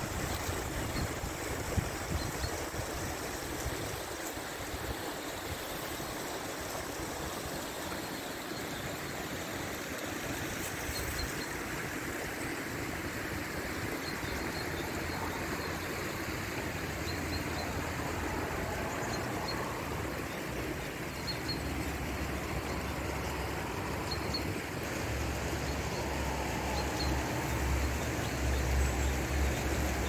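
Small stream rushing and splashing over rocks in small cascades. Wind buffets the microphone in the second half, strongest near the end.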